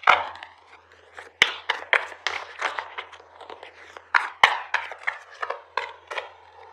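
Tarot cards being shuffled and handled: an irregular run of crisp card flicks and snaps, a few louder slaps among them, over a faint electrical hum.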